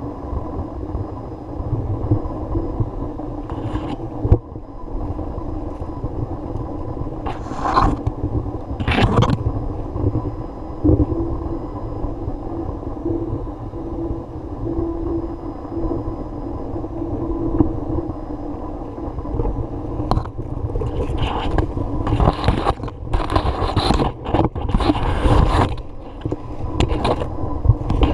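A steady low rumble with short scraping or rustling bursts, a few early on and many in quick succession near the end.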